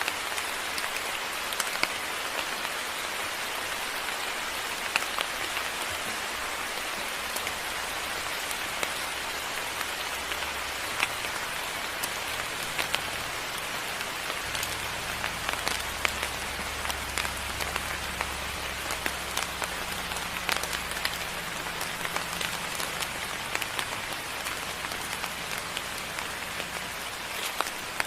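Moderate rain falling steadily, with many sharp drips striking nearby surfaces. A low rumble comes in about ten seconds in and fades out near the end.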